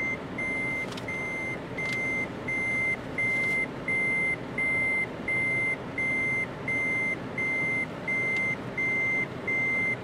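Vehicle reversing alarm: a single high-pitched beep repeating at an even pace, over the low steady rumble of the vehicle running.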